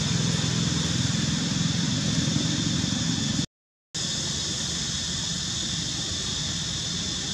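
Steady outdoor background noise: a low, even rumble under a constant high hiss. Both cut out for about half a second at an edit about three and a half seconds in, and the rumble is weaker afterwards.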